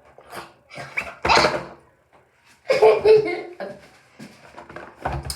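Cardboard packaging and tape being torn open, a loud noisy rip about a second in, with short non-word vocal noises from the person opening it near the middle.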